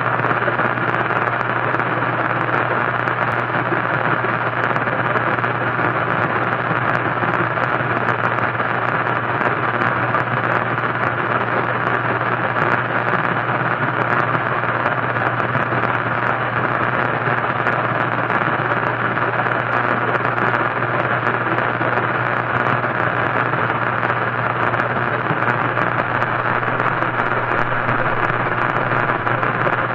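Radio static: a steady, unchanging hiss from a radio, with a low hum underneath.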